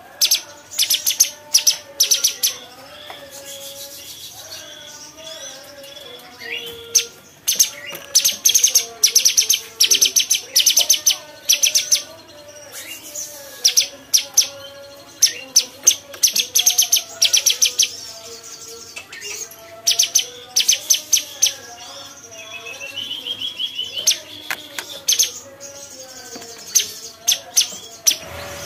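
Cucak cungkok singing: bursts of rapid, sharp, high-pitched trills and clicking notes, repeated every second or two, over a quieter, lower warbling.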